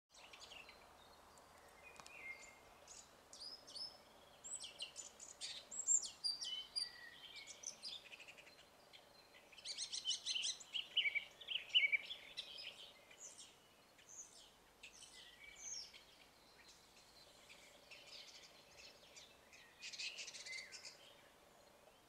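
Male red-backed shrike singing a long run of fast, varied phrases with imitations of other birds' calls worked in. It comes in bursts with short pauses, busiest around the middle and again near the end.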